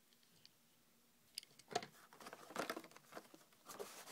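Plastic blister packaging of a die-cast toy car crinkling and clicking as it is handled, starting about a second and a half in after near silence.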